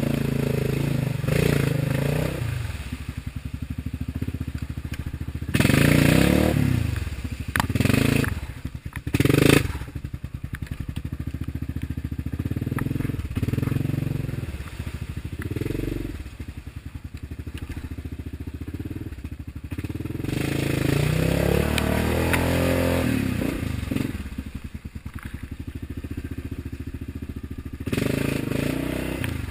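Yamaha Grizzly ATV engine revving up and down as it churns along a muddy, water-filled trail, with several loud splashes of muddy water about six to ten seconds in.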